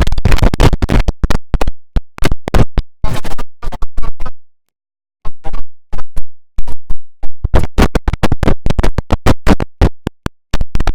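IBM OS/2 Warp 3 shutdown sound put through a stutter effect: chopped into rapid, repeated short fragments, with a brief silent gap about four and a half seconds in.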